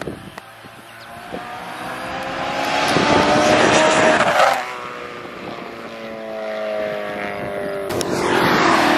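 ESS-supercharged BMW E93 M3's V8, fitted with Dinan high-flow cats, passing close by at speed. The exhaust note builds as the car approaches, then drops sharply in pitch and level about four and a half seconds in as it goes by. Near the end another vehicle passes, its sound rising and then falling in pitch.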